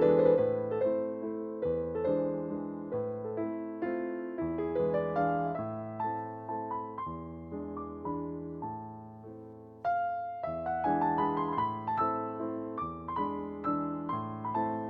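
Background solo piano music, a light classical piece of quick notes that are struck and die away. It breaks off briefly about ten seconds in, then resumes.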